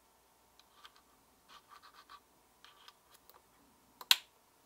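Faint scratching of a USB-C cable being handled, then one sharp click about four seconds in as the connector is plugged into a laptop's USB-C port.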